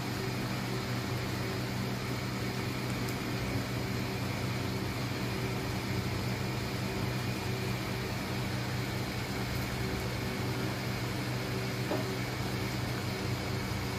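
Induction cooktop running steadily, its cooling fan hissing and its coil humming, under a pan of dal fry at a boil.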